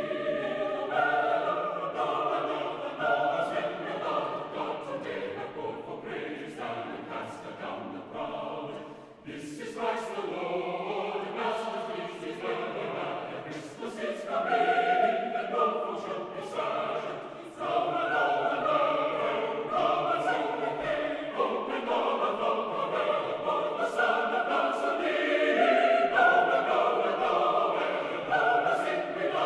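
Background music of a choir singing, in continuous phrases with brief breaks between them.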